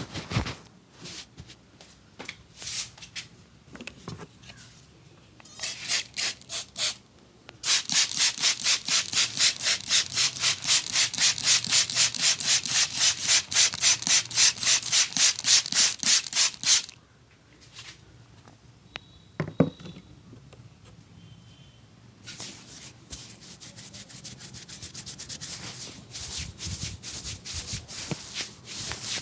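A barber's hands rubbing briskly over skin during a massage. Scattered strokes at first, then a fast, even run of rubbing strokes lasting about ten seconds, which stops abruptly. In the lull that follows comes a single sharp click, and softer, steady rubbing resumes near the end.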